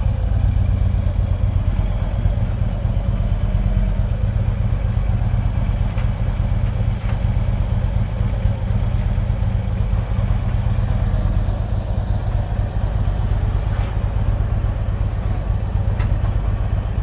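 Harley-Davidson V-twin motorcycle engine running steadily at a low, even level, picked up by a phone mounted on the handlebars, with a few faint clicks in the second half.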